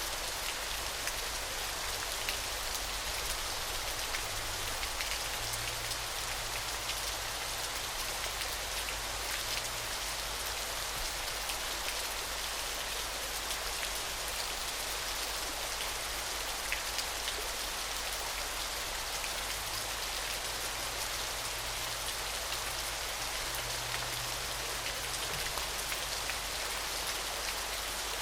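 Falling water splashing in a steady hiss, with a fine patter of drops.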